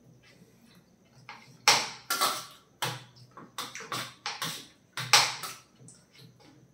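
Metal spoons and a fork clicking and scraping against a steel plate and a white plate as parotta is cut up. The clicks are irregular and sharp, starting a little under two seconds in.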